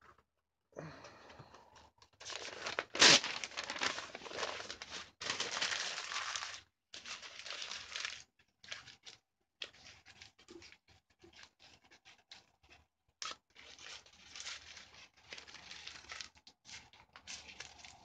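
Paper-like material being torn and crumpled by hand, in bursts of rustling with the loudest rip about three seconds in, then lighter scattered crinkling and small handling clicks.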